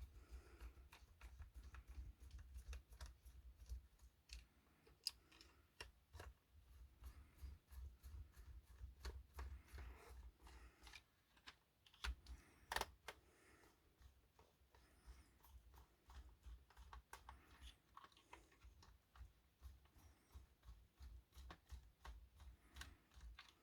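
Faint, scattered clicks and ticks of a small screwdriver and fingers handling a plastic model locomotive while screws are taken out of its underside, with a few louder clicks about halfway through, over a low steady hum.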